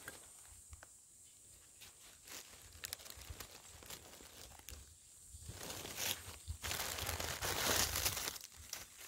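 Dry fallen leaves crackling and rustling as a gloved hand pushes through the leaf litter around a mushroom. It is faint and scattered at first, then turns loud and continuous from a little past halfway until near the end.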